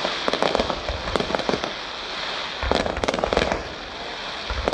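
Fireworks going off: clusters of rapid, sharp crackling pops, one during the first second and a half and another about three seconds in, over a continuous hiss of further bursts.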